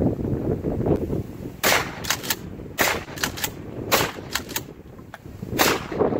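About ten sharp metallic clicks and taps, irregularly spaced, from a long gun being handled with its barrel held upright. They are no louder than the wind on the microphone, so they are handling noises, not shots.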